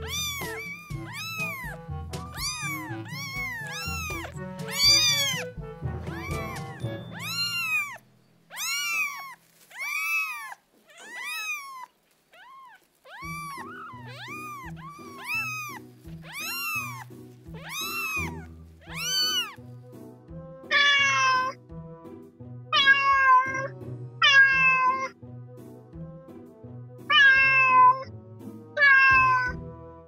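Cats meowing again and again, high-pitched calls about two a second, with background music coming in about halfway. Near the end come louder meows every second or two.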